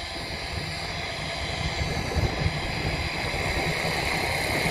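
Blade 500X electric RC helicopter's motor and rotors whining steadily as it comes down low over grass to land, growing a little louder near the end, with low wind rumble on the microphone.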